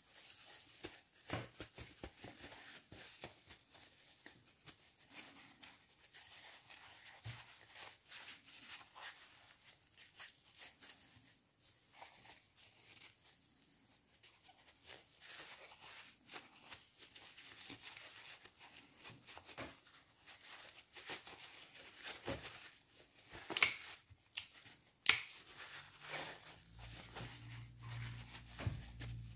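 Paper towel rubbing and crinkling against a disassembled spinning reel's body as it is wiped dry, with small handling clicks throughout. Two sharper clicks come a few seconds before the end.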